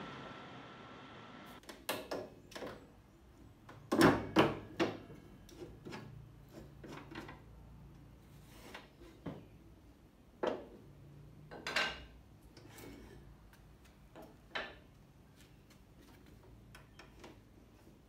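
Wooden boards and the metal clamp bars of a dovetail jig being handled: scattered wooden knocks and clunks, the loudest about four seconds in, with rubbing and small clicks between them.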